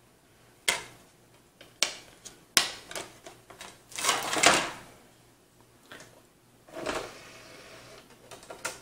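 Plastic clicks and handling as a game disc is loaded into the open tray of an optical drive: several sharp clicks, with a longer rustle about four seconds in.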